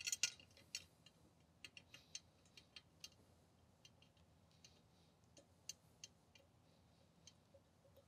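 Faint, irregular small clicks and ticks, a few close together at the start, as gloved hands set a drain clamping ring onto EPDM roofing membrane and work at its bolt holes.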